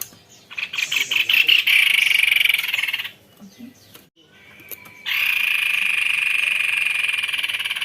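White-necked babbler singing two long, rapid rolling trills. The first builds from separate notes into a trill about half a second in and lasts about two and a half seconds. The second starts suddenly about five seconds in and runs nearly three seconds.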